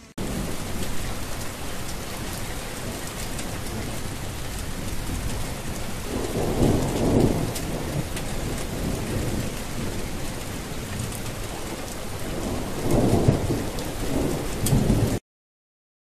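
Steady heavy rain with thunder rumbling twice, about six seconds in and again near the end. The rain starts suddenly and cuts off abruptly shortly before the end.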